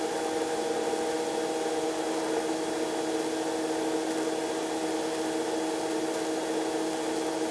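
Robinson R22 helicopter heard from inside the cabin in flight: a steady drone of engine and drivetrain with several constant whining tones, unchanged through a descent.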